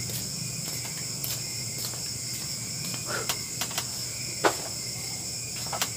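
Steady high chirring of crickets, with a few short sharp knocks; the loudest knock comes about four and a half seconds in.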